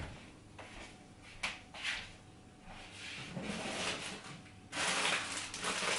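Kitchen cabinets opened and shut: a sharp click at the start and a few lighter knocks. Then, about five seconds in, a plastic bread bag rustles as it is handled.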